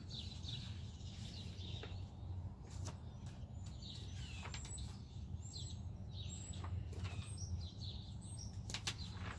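Wild birds chirping, with many short high calls and quick falling whistles, over a steady low rumble.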